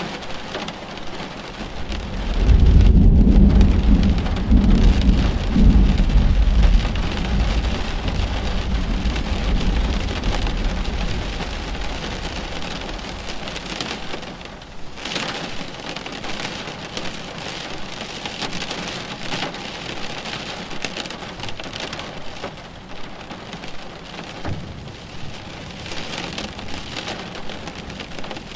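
Thunderstorm: steady rain throughout, with a rolling thunder rumble that starts about two and a half seconds in, is loudest over the next few seconds and dies away over roughly ten seconds.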